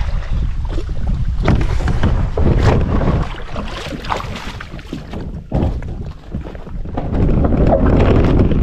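Wind buffeting the microphone over paddle strokes splashing as a kayak is paddled. About halfway through this gives way to the kayak being landed: the hull scrapes on shoreline gravel as it is pulled up, with footsteps crunching on the stones.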